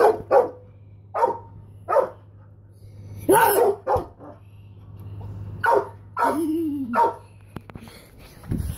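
A dog barking repeatedly, about eight barks at uneven intervals, one of them drawn out longer near the end.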